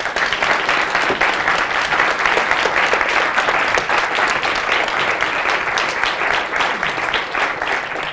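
Audience applauding at the end of a lecture: many hands clapping together, thinning slightly toward the end.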